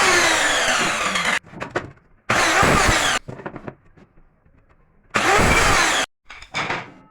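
A woodworking power tool running in three short loud bursts, each starting and cutting off abruptly, with its pitch sliding as it runs; light knocks in between.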